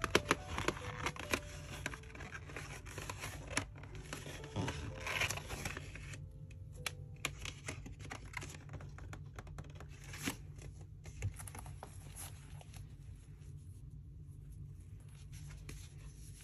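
Paper and cardboard packaging of a screen protector kit rustling and crinkling as it is handled: a cardboard folder opened and paper envelopes slid in and out. The rustling is dense for the first six seconds or so, then thins to scattered rustles and light taps.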